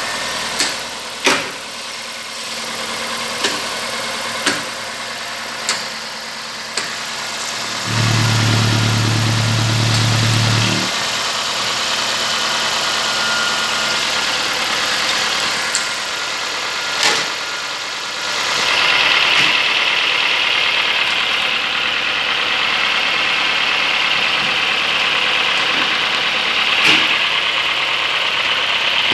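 Nissan QG18DE 1.8-litre inline-four petrol engine idling, heard up close in the engine bay, with scattered sharp clicks in the first few seconds. A steady low hum joins for about three seconds a little over a quarter of the way in, and the sound turns brighter and hissier from about two-thirds of the way through.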